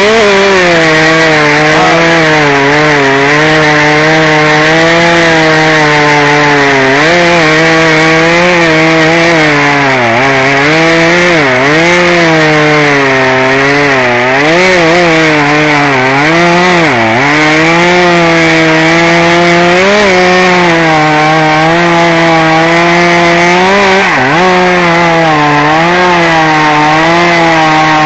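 Chainsaw running at high throttle through a long cut in wood, its engine note dipping again and again as the chain is loaded and picking back up between dips.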